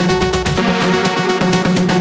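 Electronic background music with a steady, fast beat.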